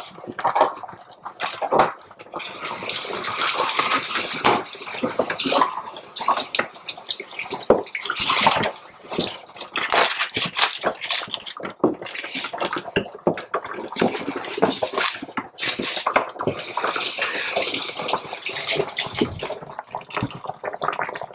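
Water running from a kitchen tap into a sink in several spells, coming and going, with clinks and knocks of utensils and dishes in between.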